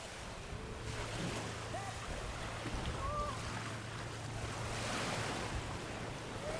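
Sea waves washing, with wind on the microphone and a low steady hum that comes in about a second in.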